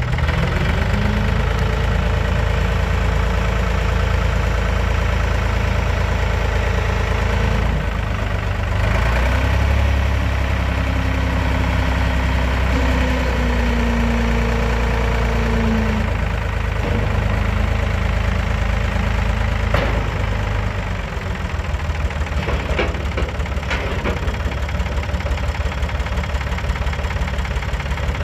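1970 Ford 4500 loader backhoe's engine running. Its note shifts and holds between about 8 and 16 seconds in, then drops to a lower, pulsing idle at about 21 seconds.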